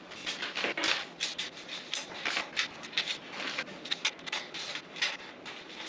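Irregular small metallic clicks and scrapes of bolts, washers and nuts being fitted by hand into the holes of a steel workbench frame.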